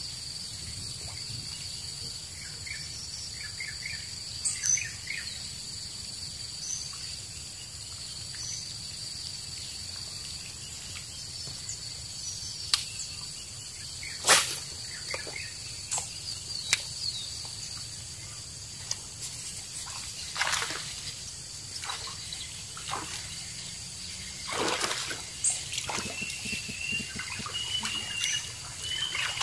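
Steady high-pitched insect drone with scattered bird chirps, broken by a few sharp clicks and short splashes as a lure is cast and worked across the water.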